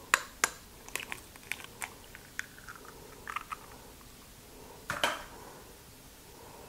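An eggshell being cracked on the rim of a small bowl: two sharp taps, then small crunchy crackles as the shell is pulled apart, and a louder knock about five seconds in.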